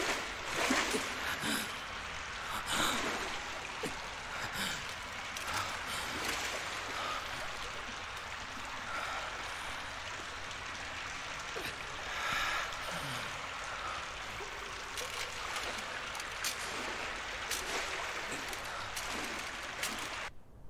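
Water running steadily through a stone sewer tunnel, with occasional short splashes and faint breath sounds from a wounded man.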